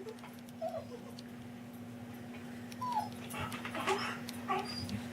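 Dog whining and whimpering in a series of short, high complaining calls, one of them falling in pitch about three seconds in, with a quick run of grumbling yips near the end; the noises of a dog upset at being refused food from the table.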